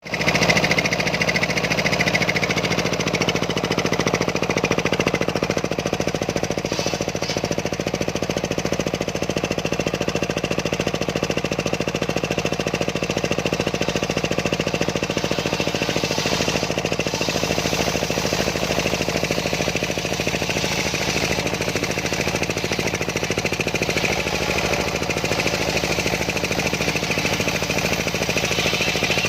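Homemade engine-driven circular sawmill running steadily with a rapid, even pulsing. Its low tone shifts a little past halfway.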